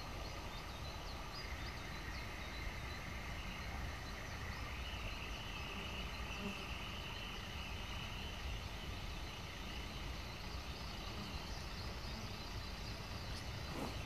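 Birds singing faintly, a few short chirps, with a steady high buzz for a few seconds in the middle, over a low steady rumble.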